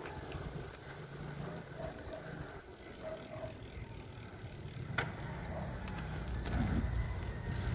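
A small motorcycle engine running as it rides along, with a low rumble that grows louder near the end, while insects chirp faintly in the background. A single sharp click comes about five seconds in.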